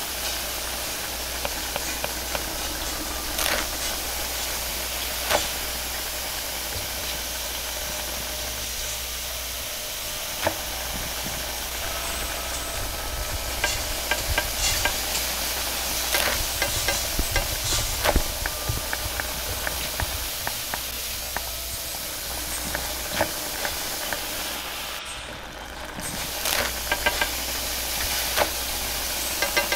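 Steady hiss of a gas wok burner's flame under a wok, with food sizzling in the wok and occasional sharp clinks of a metal ladle against the wok.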